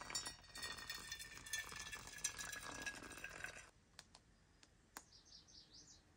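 Hot water poured from a kettle onto coffee grounds in a paper pour-over filter: a steady trickling stream with small clicks, which stops about three and a half seconds in. After that there is faint outdoor quiet with a few light clicks, and about five seconds in a brief, faint bird trill.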